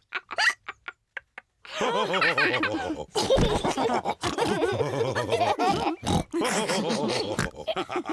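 Cartoon pig voices snorting and oinking: a few short snorts at first, then from about two seconds in several voices at once.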